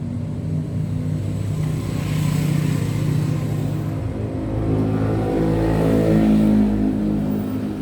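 A motor vehicle engine running and revving, its pitch stepping up, with a deep rumble that is loudest about six seconds in.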